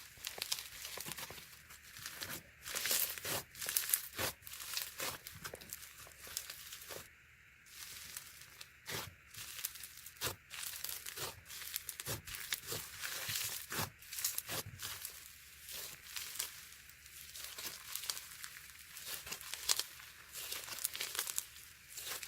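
Hands pressing, stretching and crushing a crunchy sponge-textured slime, giving dense, irregular crackling and popping, mostly high-pitched, with a brief pause about seven seconds in.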